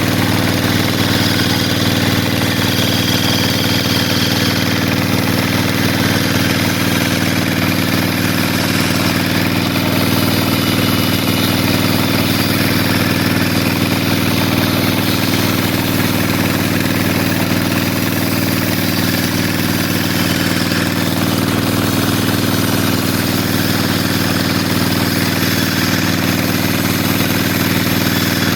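Sawmill saw machinery running steadily, a loud constant engine-like hum that does not change.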